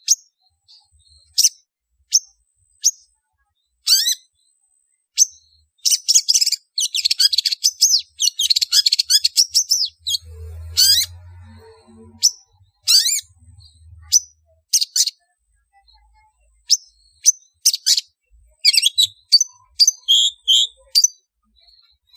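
Long-tailed shrike (cendet) calling: sharp, high chirps and harsh chatter. Single notes come a second or so apart, with a dense run of fast chattering in the middle and another cluster of notes near the end.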